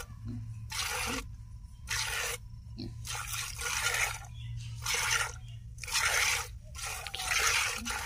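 Cow's milk squirting by hand into a plastic bucket: a regular series of short hissing spurts, about one a second.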